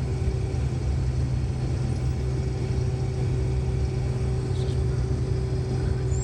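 Combine harvester running steadily while harvesting corn: an even, unbroken low drone with a constant hum.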